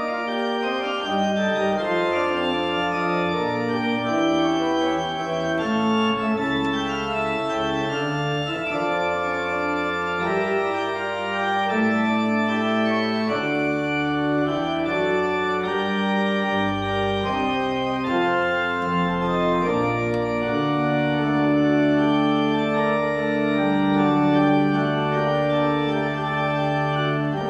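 1967 Flentrop mechanical-action (tracker) pipe organ played: several voices of held, overlapping notes moving over a bass line. A long bass note is sustained through the last several seconds.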